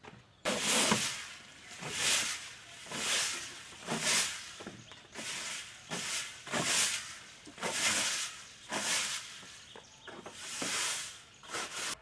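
Rhythmic swishing strokes, about one a second, that start and stop abruptly.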